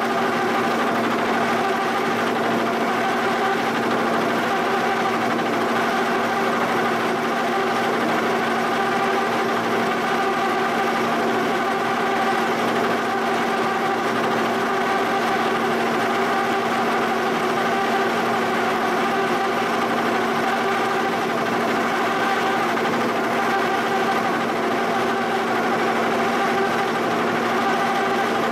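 Giddings & Lewis horizontal boring mill running steadily while an end mill side-cuts the face of a cast-iron shaper casting: a constant machine hum with a steady pitched whine from the spindle drive and cut.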